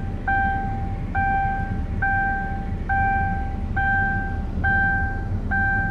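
Car warning chime beeping at an even pace, about seven beeps, each a little over half a second long, with a low engine rumble underneath.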